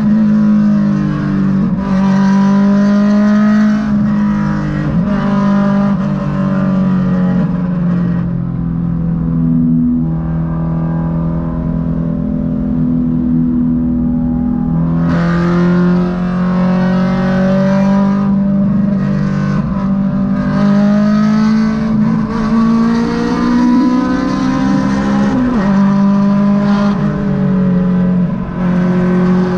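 Inside the cabin of a Honda Civic EK4, its naturally aspirated four-cylinder VTEC engine is running hard at highway speed under a haze of road noise. The revs rise and fall with the throttle: a long climb in pitch in the second half ends in a sudden drop at a gear change.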